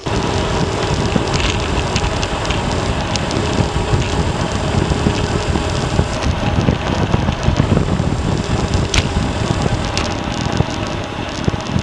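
Steady wind rush buffeting the camera microphone from riding a bicycle, with a few faint clicks.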